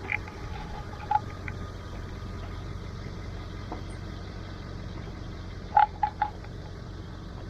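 A vehicle engine running low and steady while driving slowly, with a few short high squeaks: one about a second in and three close together near the end.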